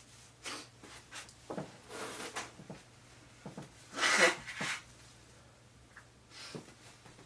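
A person sniffing and breathing through the nose after sneezing, with a series of short breathy sniffs and one louder, sharp nasal burst about four seconds in.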